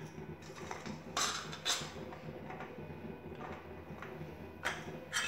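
A few short clinks and scrapes of steel kitchenware as a hand scoops boiled drumstick flowers out of a perforated steel colander into a steel bowl of batter, with soft handling sounds in between.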